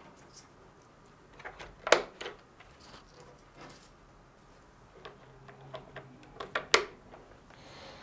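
Scattered light plastic clicks and knocks as a robot vacuum's side brushes are handled and pressed onto their spindles on its underside; the sharpest click comes about two seconds in and another about a second before the end.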